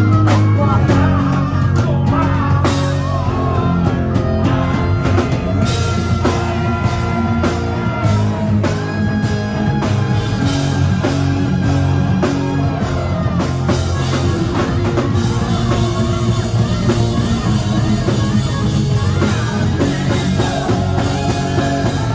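Live rock band playing loud and steady: electric guitars, bass and drum kit, with a male singer.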